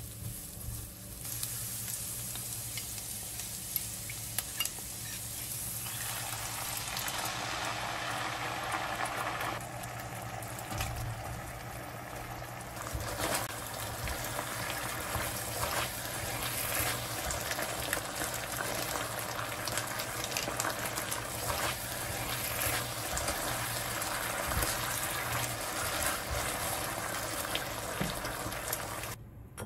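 Diced zucchini, carrot and chicken breast sizzling in a nonstick wok, with small clicks and scrapes from the spatula as it is stirred. The sizzle grows fuller about six seconds in, and the pieces cook on in a bubbling sauce until the sound cuts off just before the end.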